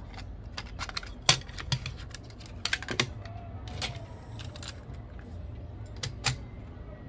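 Irregular sharp plastic clicks and taps as a clear cassette is handled and set into the Onkyo K-505X deck's motorized cassette loading mechanism, with a faint falling whine of the loading mechanism about halfway through.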